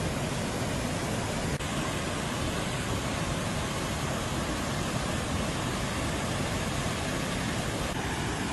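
Steady rush of floodwater pouring over the rim of an overflowing bell-mouth (morning-glory) reservoir spillway and plunging into its shaft.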